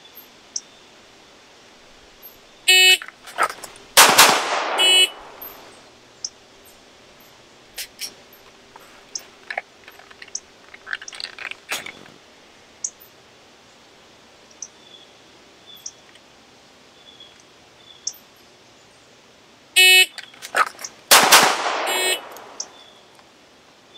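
A short electronic shot-timer beep, then two quick 9mm pistol shots from a CZ 75 fired one-handed from a close-quarter retention position. The same string of beep and shots comes again about 17 seconds later, with light clicks of handling in between.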